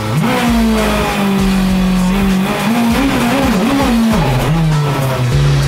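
Volkswagen Polo rallycross car's engine revs up sharply from idle and is held at a steady higher pitch for the launch-control test. The pitch then rises and falls a few times before dropping back to a steady idle near the end.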